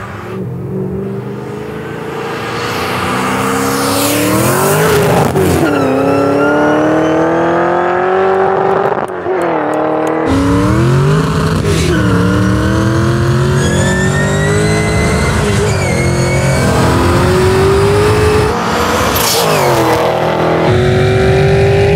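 Two V8 race cars, an LS3-powered Pontiac GTO and a twin-turbo BMW M8 Competition, accelerating hard from a rolling start. Their engine pitch climbs steadily and drops back at each upshift, several times through the gears.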